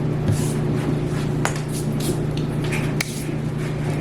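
Light clicks and knocks of kitchen things being tidied away, over a steady low hum.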